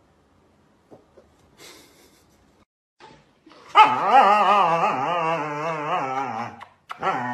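Husky vocalizing in a long, loud, wavering howl-like call lasting about three seconds. A second, shorter call starts near the end.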